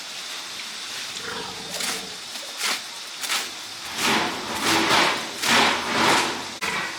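Pigs squealing in a series of short calls, the loudest and most closely spaced from about four seconds in to about six.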